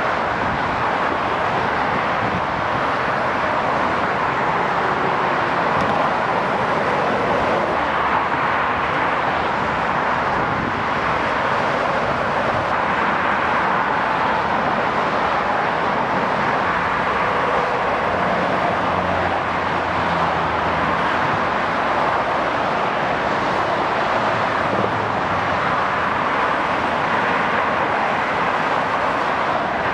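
Steady motorway traffic noise: the tyre roar of lorries and cars passing at speed, with a deeper engine drone coming through for a few seconds past the middle.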